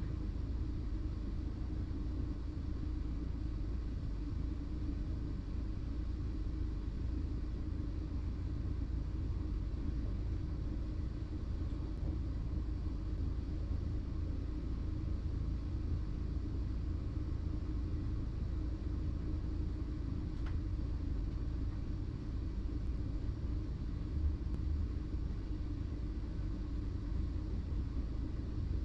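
Steady low rumble in the driver's cab of a BLS MUTZ RABe 515 electric multiple unit.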